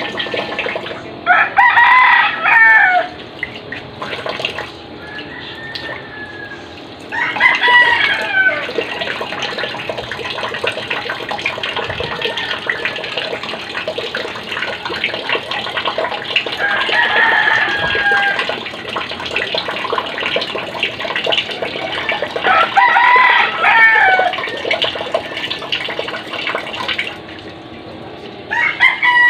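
A rooster crowing about five times, several seconds apart, each crow lasting a second or so. Under it, a steady rush of tap water running, as for hand washing.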